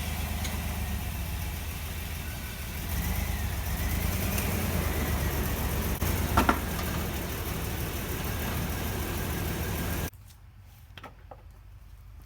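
2000 Chevrolet Blazer's 4.3-litre V6 idling, then switched off about ten seconds in. The engine has a misfire that the owner is hunting for.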